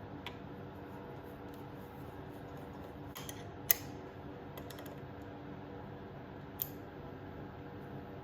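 Polished aluminium Tusk clutch lever on a Honda CRF125FB being squeezed and released, giving a few sharp metallic clicks, the loudest about three and a half seconds in, over a steady low hum.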